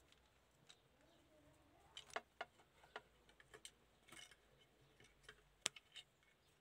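Sparse sharp clicks and taps of small plastic model-car parts being handled and pressed together, the loudest about two seconds in and another near the end.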